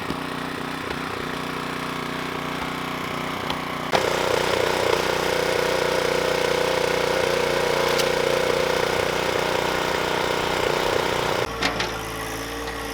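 Small gas engine of a 13-ton log splitter running steadily. About four seconds in it turns suddenly louder and heavier, and near the end it drops back, with a few sharp cracks.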